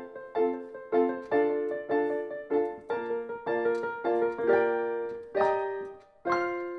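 Background piano music: notes struck about twice a second, each fading, ending on a held chord after a short pause near the end.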